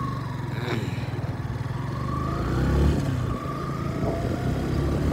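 Motorcycle engine running, with the revs rising a few times as the bike moves off; it is loudest about three seconds in.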